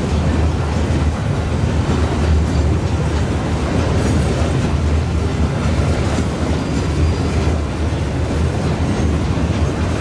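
Coal hopper wagons of a long freight train rolling past: steel wheels on rail making a steady low rumble with some clatter over the rail joints.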